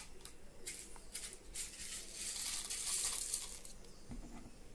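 Dry instant noodles being crushed and broken up by hand and dropped into a plastic toy wok, giving irregular crackling that is densest around the middle.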